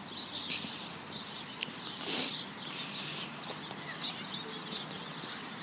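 Small birds chirping faintly in the background, with a short rush of noise about two seconds in.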